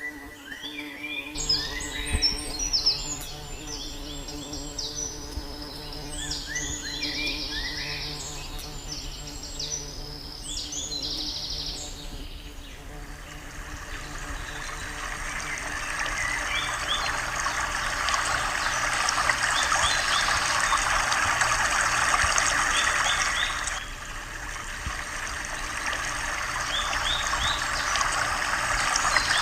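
Birds chirping in quick repeated notes for about the first twelve seconds, then a dense steady hiss with scattered chirps over it, which drops suddenly about twenty-four seconds in and builds again.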